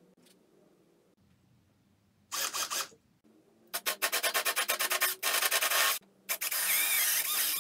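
Cordless drill boring into the end grain of a red carob log, the bit rasping through the wood in four bursts that start about two seconds in, with the second burst pulsing rapidly.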